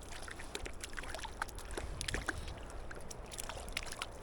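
Light, irregular water splashes and drips, from a small just-landed trout splashing and being handled at the water's surface, over the low steady rush of the river.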